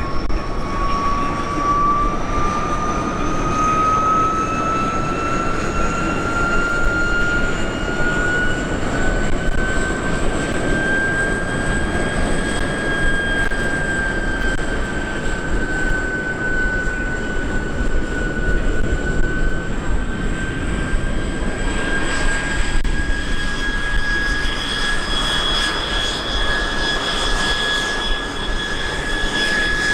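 Helicopter turbine engines whining over a steady rush of rotor and engine noise. The whine rises in pitch over the first dozen seconds, then holds nearly level.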